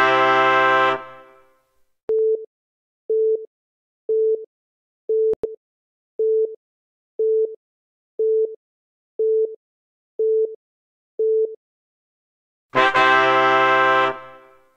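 Quiz sound effects: a loud horn-like blast of many tones that fades over about a second, marking an answer reveal; then ten short identical countdown-timer beeps, about one a second; then the same horn blast again near the end as the next answer is revealed.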